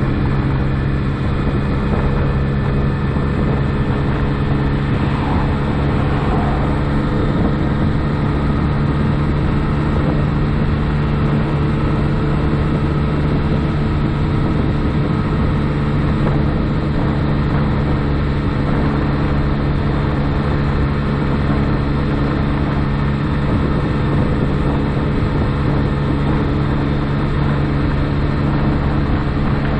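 2007 Honda Ruckus 49cc four-stroke single-cylinder scooter engine running at a steady, even pitch while the scooter is under way at a constant speed, with road noise beneath it.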